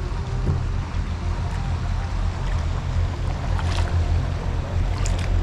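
Kayak on open salt water: a steady low wind rush on the microphone over moving water, with a few light splashes.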